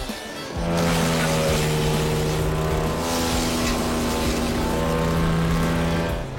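Two-stroke chainsaw held at high revs: a steady, high engine note that comes up suddenly about half a second in and drops off just before the end.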